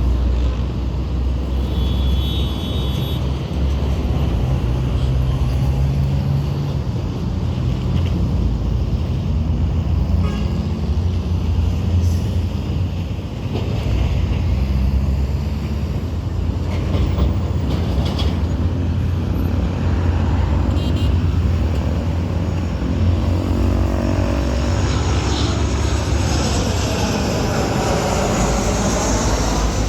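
Steady low rumble of road traffic. Over the last several seconds a jet airliner on landing approach grows louder, its sound sweeping in pitch as it comes in low.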